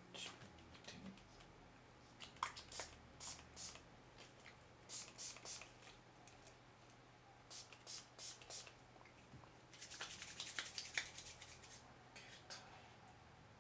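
Faint, short hissing squirts from a small pump spray bottle of invisibleSHIELD application solution, misting the fingers in several quick groups, mixed with wet fingers rubbing together.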